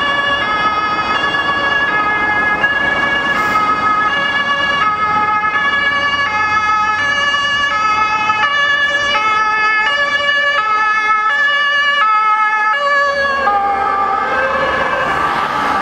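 German two-tone siren (Martinshorn) on a fire-brigade crew van, alternating between two pitches about every two-thirds of a second as the van approaches. Its pitch drops about 13 seconds in as it passes.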